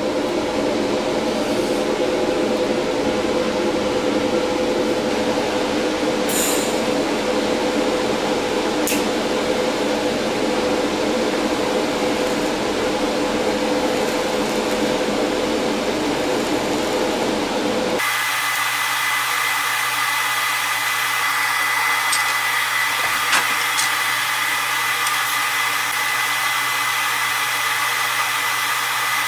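TIG welding arc from a PrimeWeld TIG225X burning steadily on a stainless steel T-joint: a continuous hiss with a held tone. About eighteen seconds in the sound changes abruptly to a thinner, higher steady whine.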